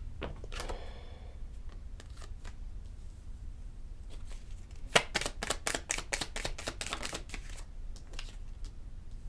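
Tarot cards being shuffled by hand, with a fast run of card clicks about five seconds in.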